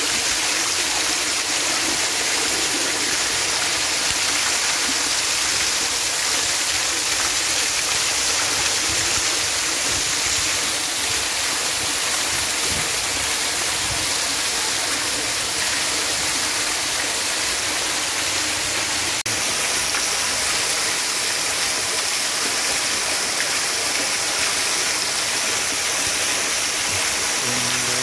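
Fountain spray falling steadily into a swimming pool: a continuous, even splashing and pattering of water on water.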